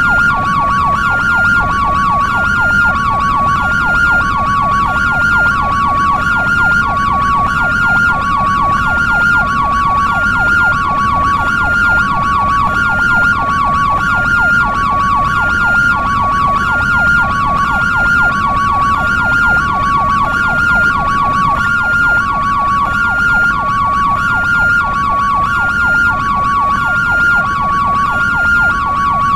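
European ambulance hi-lo two-tone siren, alternating evenly between a high and a low note about once a second. A fast yelp warble runs under it, with a steady low rumble beneath.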